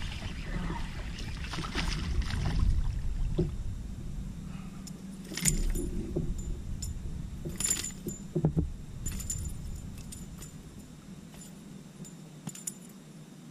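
Fishing tackle clinking and jangling as a small bass is reeled in and lifted into a kayak: several sharp metallic clicks around the middle, over a low rumble that dies away near the end.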